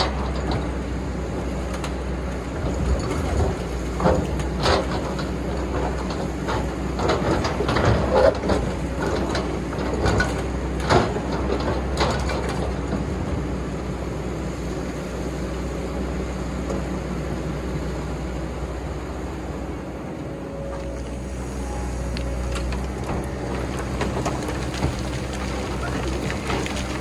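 Excavator engine running steadily, with a run of knocks and scrapes from the bucket digging into sand during the first half.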